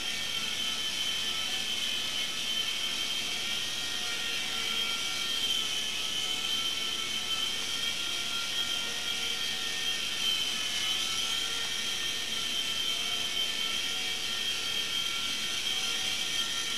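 Micro Hughes 300 RC helicopter's small electric motor and rotors whining steadily in flight, a high, drill-like whine that wavers slightly in pitch as it hovers.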